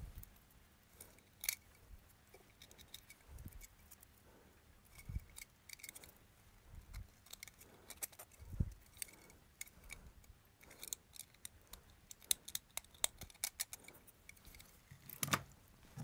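Utility knife blade cutting and scraping a small plastic crimp-connector housing, a quiet run of sharp little clicks and scrapes that grows busier in the second half. A few dull knocks come in between, and a louder knock near the end.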